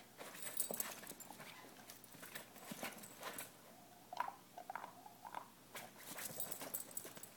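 Two dogs tussling on a dog bed: scuffling, rustling and scrabbling claws, with a few short dog whines in the middle.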